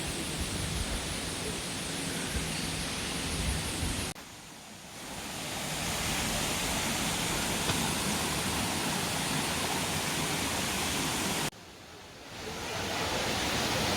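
Waterfall rushing, a steady even noise of falling water. It drops away abruptly twice, about four seconds in and again near the end, and swells back within a second or so each time.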